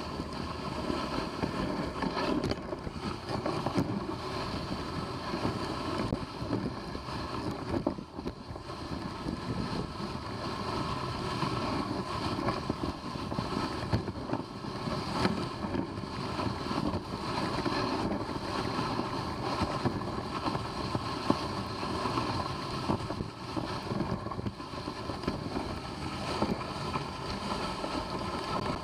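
Dog sled moving over snow: the runners make a steady hiss and scrape, with wind on the microphone.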